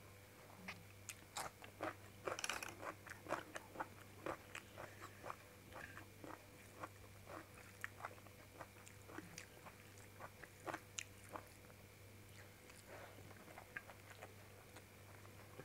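Close-up chewing and biting: a raw cucumber slice and hand-eaten rice crunched and chewed in the mouth, the crunches thickest about two to three seconds in and thinning out later. A steady low hum runs underneath.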